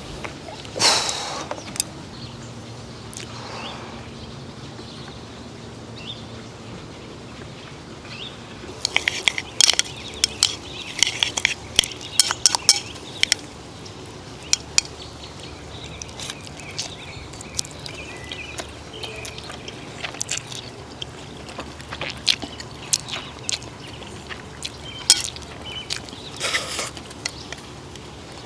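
Instant ramen noodles being slurped and eaten, with chopsticks clicking against the bowl: a dense run of slurps and clicks in the middle and a few more near the end. A short noise about a second in.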